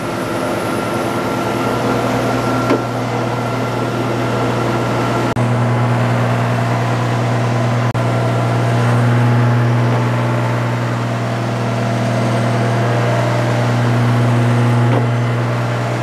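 Jet 20-inch industrial planer running with its gearbox cover off: a steady machine hum, with the feed-drive chains and sprockets turning. About five seconds in a click is heard and the hum changes, as the two-speed feed gearbox is shifted while the machine runs.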